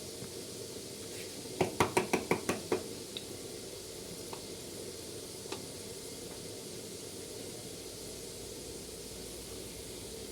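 Mustard oil with ginger, garlic and whole spices sizzling gently in a pan over a low gas flame. About a second and a half in comes a quick run of about eight knocks: a utensil tapped against the pan.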